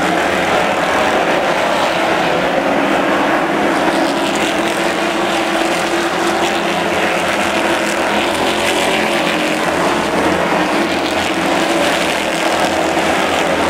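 A pack of late model stock cars racing on a short oval, many V8 engines running at once in a loud, steady blend.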